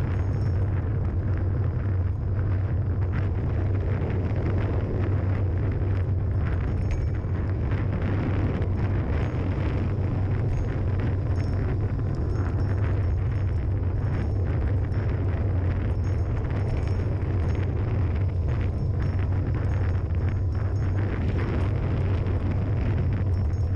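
Wind buffeting the microphone of a camera travelling fast downhill, a steady loud rush over a constant low rumble from the road.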